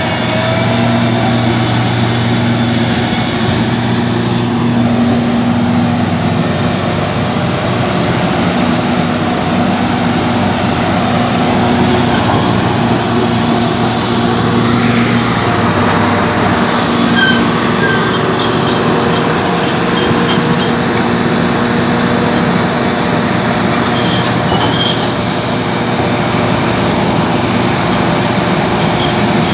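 Komatsu PC1250SP crawler excavator's diesel engine running with a steady low hum, its steel crawler tracks clanking as the machine travels, with a few short metallic squeals in the second half.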